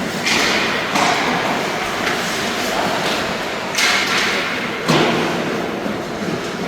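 Game play echoing in a large hall: several sharp thuds and slams, each followed by a brief scraping hiss that dies away.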